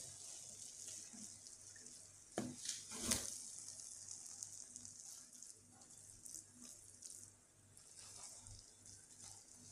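Wooden spoon stirring thick, cooked banga rice in a stainless-steel pot over a faint steady hiss, with two knocks of the spoon against the pot about two and a half and three seconds in and a few lighter clicks later.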